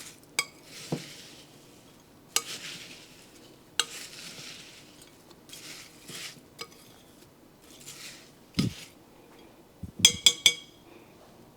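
Spoon stirring crispy rice cereal coated in a chocolate and coconut-oil mixture in a mixing bowl: soft rustling scrapes with scattered clicks of the spoon against the bowl, and a quick run of three ringing clinks near the end.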